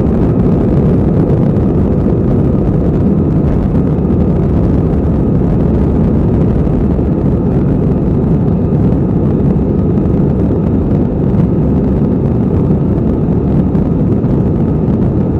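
Steady, loud rumble of a moving vehicle, heaviest in the low end, with a faint steady tone above it.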